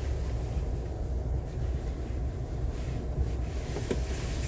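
Steady low rumble of a Ford Maverick Tremor pickup crawling along a rough dirt trail, heard from inside the cab: drivetrain and tyre noise with some buffeting on the phone's microphone.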